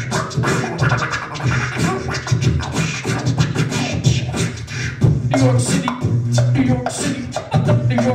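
Several beatboxers jamming together into microphones: fast percussive mouth drum sounds over a deep vocal bass line. From about five seconds in, held sung or hummed notes join the beat.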